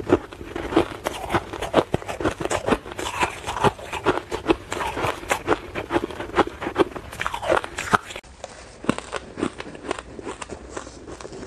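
Crushed ice being bitten and chewed close to the mouth: many quick, crisp crunches. After a cut about eight seconds in, the crunching goes on quieter and softer.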